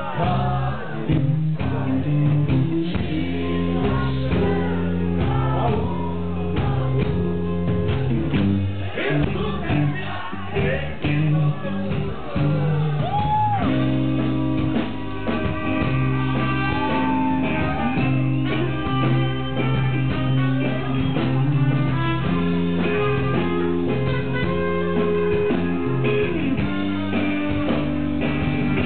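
Live rock band playing a blues number, with electric guitar, bass and drums under a male singer whose voice slides up and down in pitch now and then.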